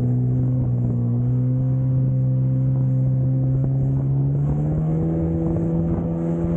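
Jet ski engine running steadily at speed, its pitch rising a little about four to five seconds in as the throttle opens.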